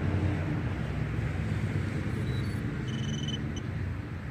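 Brushless micro quadcopter powering up on a 2S battery: short high electronic beeps from its ESCs and motors, a brief one about two seconds in and a longer one about three seconds in, over a steady low background rumble.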